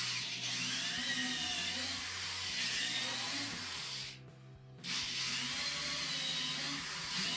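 A small handheld power tool running with a high, wavering whine, in two runs of about four seconds with a short stop between them.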